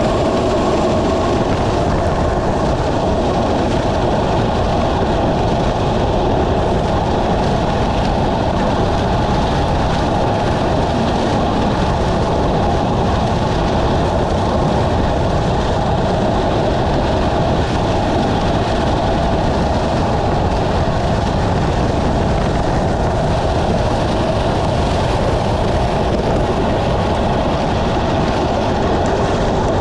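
Loud, steady rush of wind and road noise on the microphone of a camera riding on a bicycle at racing speed in heavy rain.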